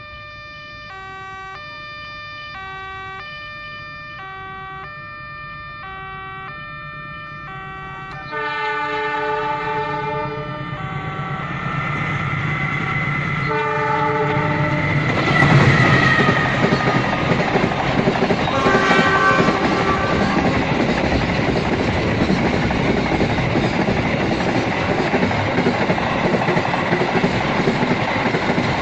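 Railway level-crossing alarm sounding an alternating two-note tone about once a second. Then a freight train's horn blows, first about 8 s in, again around 13 s and briefly around 19 s, as the locomotive approaches. The train then passes, its wheels clattering steadily over the rails.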